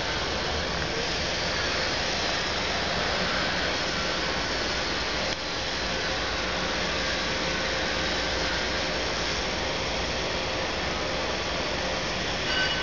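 Ford 655C backhoe loader's diesel engine running steadily, a continuous even mechanical noise with a faint steady hum in it.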